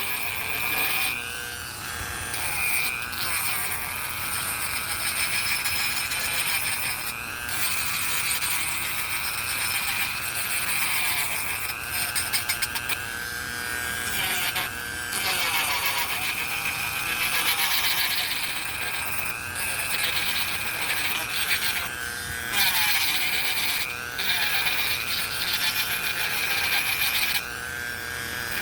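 Dremel rotary tool whining at high speed while sanding wood. Its pitch dips and recovers every few seconds as it is pressed against the wood and lifted off.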